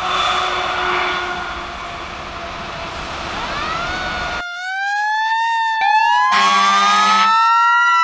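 Outdoor background noise, then from about four seconds in a siren-like wail that slowly rises and falls, standing alone against a silent background, with a brief buzzing chord under it near the end.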